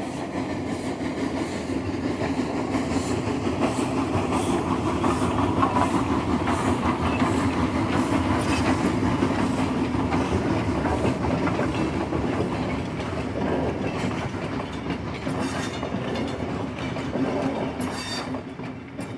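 A train running at speed on track, its wheels clicking rhythmically over the rail joints. It grows louder over the first few seconds and then runs on steadily.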